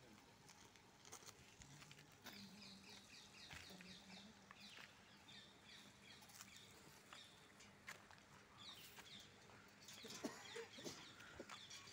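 Near silence outdoors with faint bird calls: a run of quick high chirps about two seconds in, and more near the end.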